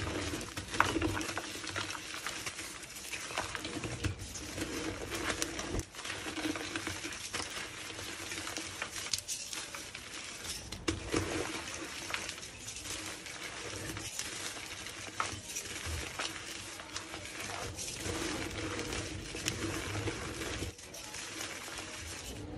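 Bare hands squeezing and crushing reformed gym chalk blocks and loose chalk powder: continuous soft crunching and crumbling with many small crackles.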